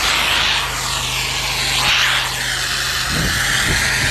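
Pressure-washing rig's engine running steadily under the loud hiss of a spray of soap pre-treatment onto driveway concrete. The hiss sweeps up and down as the spray moves.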